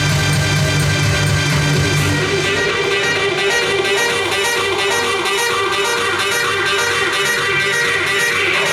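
Music playing with guitar; its heavy bass drops out about two and a half seconds in.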